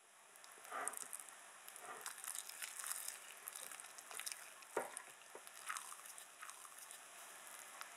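Spatula folding chopped walnuts and dark chocolate into thick banana bread batter in a glass bowl: faint, irregular wet squelches and scrapes, with one sharper click against the bowl a little past the middle.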